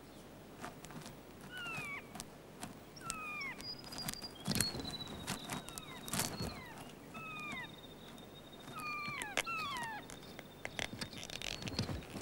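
Kea giving short, falling, mewing calls several times, with two sharp knocks near the middle as its beak strikes the truck's rear reflector. A thin high whistle is held twice for a couple of seconds, and wings flap at the end.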